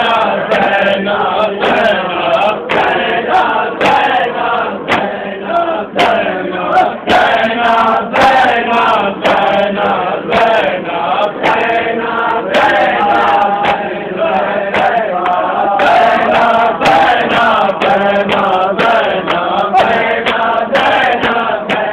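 Group of men chanting a nauha, a Shia mourning lament, in unison, with the steady slap of matam (hand chest-beating) keeping time, roughly two beats a second.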